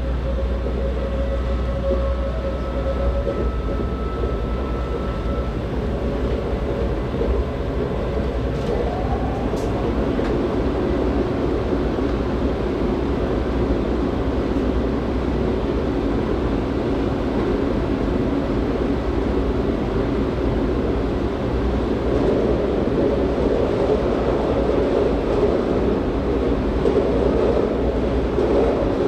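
Passenger train heard from inside the carriage while running: a steady rumble of wheels on rails with a low drone underneath. A faint steady tone sounds in the first few seconds, and the running noise grows a little louder near the end.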